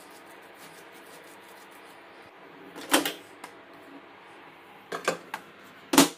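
A few sharp clunks and clicks as a plastic food tub is handled and put into a small dial-timer microwave oven, the loudest a clunk near the end as the microwave door is shut.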